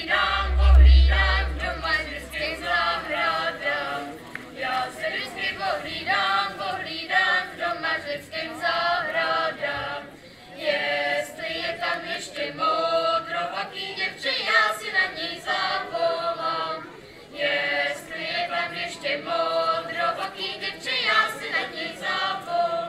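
A group of children's voices singing a folk song together, unaccompanied, in phrases with short pauses between them. A brief low rumble comes about a second in.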